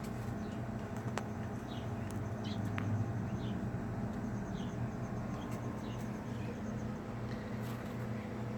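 Small grass parrots in an aviary giving short, high, falling chirps every second or so, over a steady low hum.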